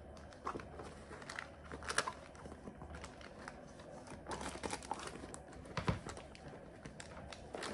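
Crinkling and rustling with scattered light clicks as small items and a makeup bag are handled and packed into a handbag, with one louder thump about six seconds in.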